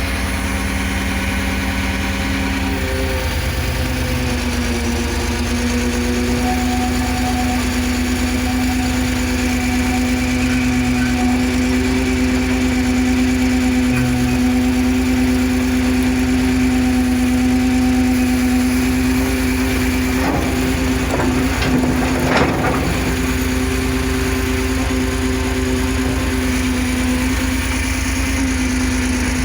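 Cat 330 CL excavator's diesel engine running steadily under hydraulic work, its pitch shifting slightly now and then. A brief clatter of knocks comes about twenty and twenty-two seconds in.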